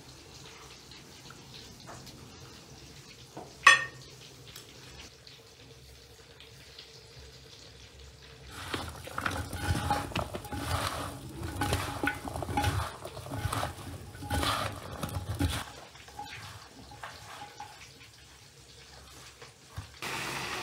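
Kitchen work with dishes and utensils: a single sharp clink a little under four seconds in, then several seconds of louder clattering and handling noise that dies away.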